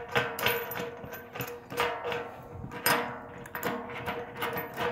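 A steel nut being spun by hand onto a threaded bolt through a stack of washers, with irregular metallic clicks and clinks as the nut and washers knock against each other, about five sharper ones.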